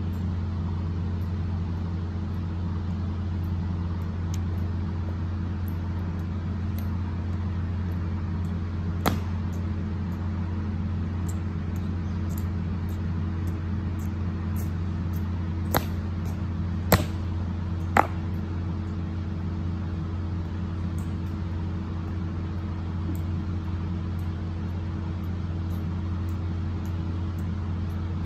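A steady low mechanical hum, like an idling engine, with four sharp clacks from the honor guards' drill: one about nine seconds in, then three roughly a second apart a little past halfway.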